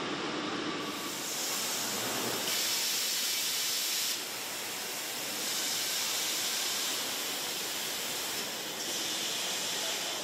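Steady rushing hiss from a car-body processing booth on an assembly line. It sets in about a second in and swells and eases several times.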